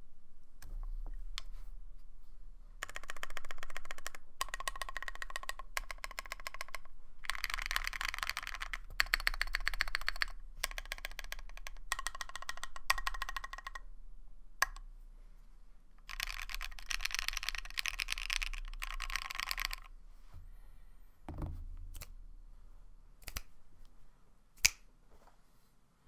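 Typing on a mechanical keyboard with lubed KTT Strawberry linear switches (POM stems, polycarbonate housings) and PBT keycaps: about four bursts of fast keystroke clack, a few seconds each, separated by pauses with scattered single key presses. One sharper, louder keystroke comes near the end.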